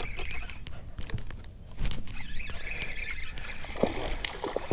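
Spinning reel being cranked against a hooked largemouth bass, with the fish splashing at the surface about four seconds in.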